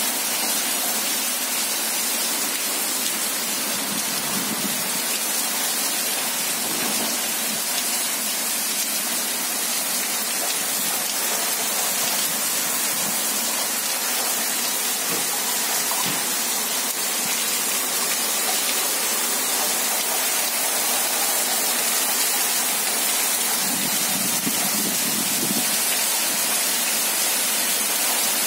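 Heavy rain falling steadily on clay-tiled roofs and whitewashed walls: a dense, even hiss.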